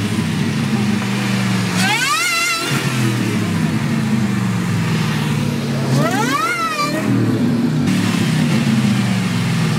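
Supercharged V8 of a Ford F-150 pickup idling and revved twice, about four seconds apart. Each rev rises sharply in pitch, then sinks slowly back to idle.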